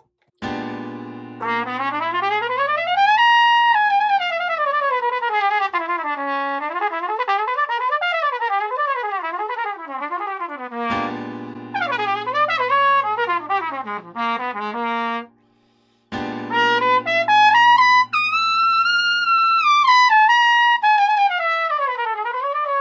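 Jazz trumpet improvising over a C13♭9 chord with the C half-whole diminished scale. It plays three phrases of quick runs: the first climbs fast and comes back down, and a short pause of about a second falls a little past the middle.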